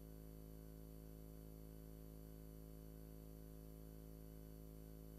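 Near silence: room tone with a steady low hum and faint hiss.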